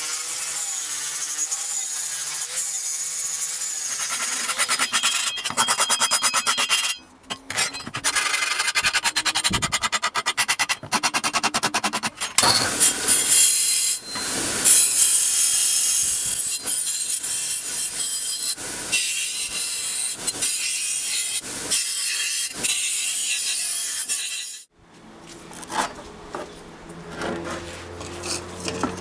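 Angle grinder with a flap disc grinding the edges of a galvanized sheet-metal cross, worked in many short passes with the pitch of the motor rising and falling. About 25 s in the grinding stops, and a few quieter taps follow.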